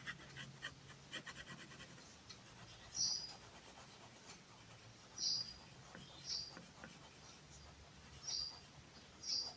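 Pen or marker scratching on paper in quick short strokes for the first two seconds. From about three seconds in come five short high chirps, a second or two apart, which are the loudest sounds.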